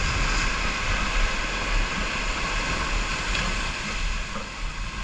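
Steady rushing noise of wind and surf, with a low rumble of wind buffeting the microphone.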